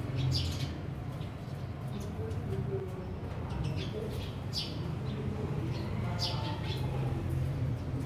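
Sparrows chirping: short, scattered chirps, with a cluster about halfway through and another near the end, over a steady low hum of background noise.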